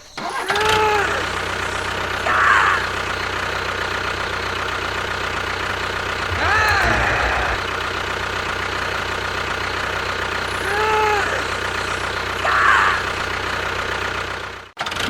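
A steady engine-like running sound, with a few short rising-and-falling voice-like calls over it.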